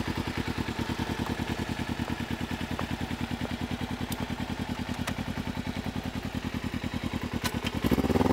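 Kawasaki Ninja sport motorcycle engine idling with a steady, fast, even pulse. Near the end it gets louder and its pitch rises as the revs pick up.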